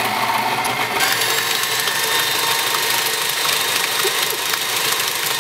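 Electric stand mixer running, its beater whipping powdered-sugar frosting in a metal bowl. A steady motor whir that turns brighter and sharper about a second in.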